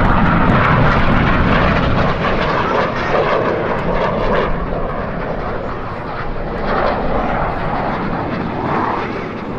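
Jet noise from BAE Hawk T1 jet trainers' Rolls-Royce Adour turbofan engines flying display manoeuvres overhead: a steady rush that slowly fades.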